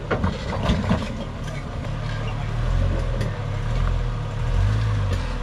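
Jeep Cherokee XJ engine working under load as it crawls up a rock ledge, a low drone that revs up twice. There are a few sharp knocks near the start.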